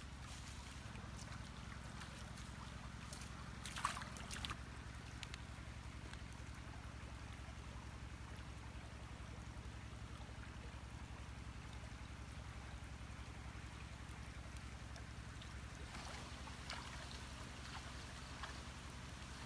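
Shallow jungle stream trickling under a steady low hum, with a brief cluster of sharp clicks or knocks about four seconds in and a few fainter ones near the end.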